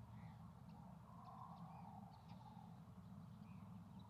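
Near silence, with several faint short bird chirps spaced through it over a low steady background hum.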